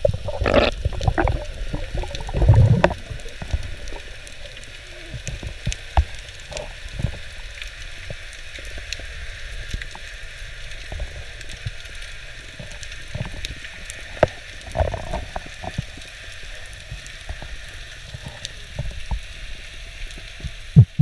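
Underwater sound during a spearfishing dive: gurgling water and low thumps in the first few seconds, then a steady hiss scattered with sharp clicks and occasional thumps.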